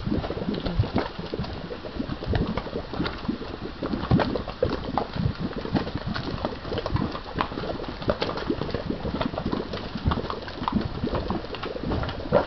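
Volcanic mud pot boiling: thick grey mud bubbling, with a quick, irregular run of plops and pops as bubbles burst at the surface.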